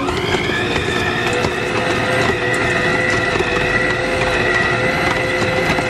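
Acekool stand mixer running steadily with a high whine, its beater turning through cooked chicken in the stainless steel bowl to shred it.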